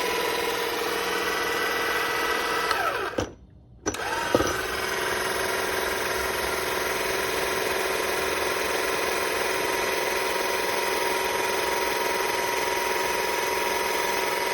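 Electric motor of a VEVOR 12 V electric car jack kit running with a steady whine, winding down and stopping about three seconds in, then starting again with a jolt less than a second later and running steadily on.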